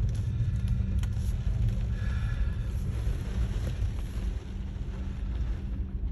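Storm wind buffeting the microphone: a loud, low, unsteady rumble.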